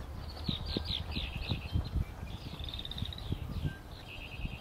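Several songbirds singing in woodland: short high chirps, quick down-slurred notes and a couple of fast trilled runs of repeated notes. Soft low thumps and a rumble sit underneath.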